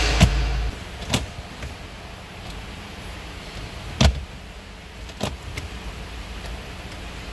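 Mercedes-Benz SLC glove box latch and lid clicking as the lid is released and swings open: a few sharp clicks spaced a second or more apart, the loudest about four seconds in. A steady low hum stops under a second in.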